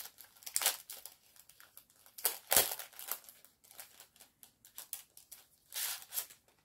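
Crinkling and rustling of packaging and paper being handled, in short irregular bursts, with a knock about two and a half seconds in.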